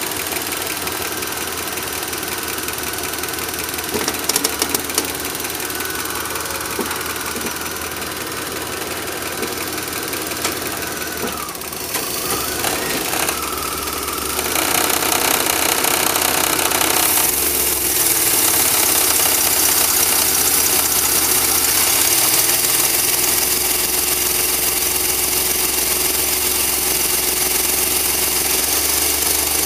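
Van engine running, heard through the open doghouse: at idle, then given gas and held at a higher, steady speed from about halfway through, with a few sharp clicks about four seconds in. The engine is a troubled one whose owner suspects the fuel injectors or spark plugs, with worn rings.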